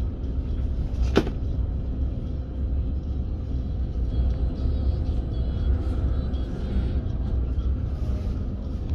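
Steady low rumble and hum of a train standing at a station platform, with one sharp click about a second in.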